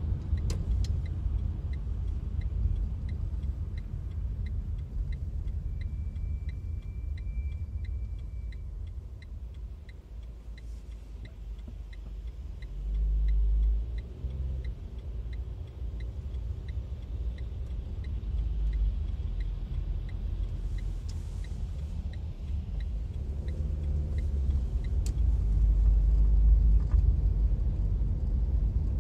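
Car cabin interior while driving on city roads: steady low engine and tyre rumble that swells briefly about halfway and again near the end. Through most of it there is a faint regular ticking, about two a second, which stops near the end.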